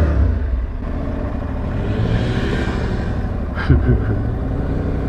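Aprilia Tuareg 660 parallel-twin motorcycles pulling away on dirt, engines running under a steady low rumble, with a brief rev about two-thirds of the way through.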